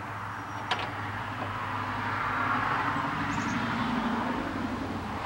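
A passing road vehicle, its noise swelling and then fading over a few seconds above a steady low hum, with a single sharp click about two-thirds of a second in.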